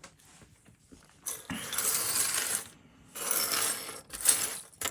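Metal fishing lures and their hooks clinking and jangling together as they are handled and piled up, in three spells of jingling, the last one short.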